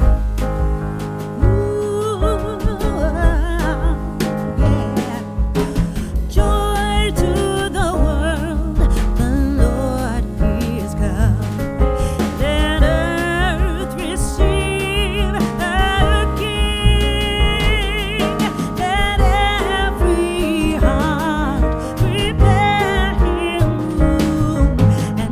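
Background music with a steady beat and a sung melody.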